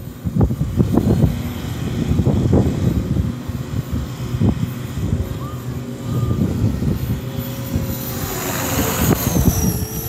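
Walkera V450D03 electric RC helicopter's motor and rotor whining overhead, under heavy gusty wind buffeting the microphone. Near the end the whine grows louder and falls in pitch as the helicopter comes in close while being pushed around by the wind.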